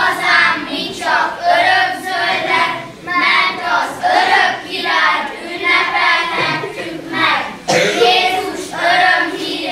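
A group of children singing together in unison, in short phrases of about a second each.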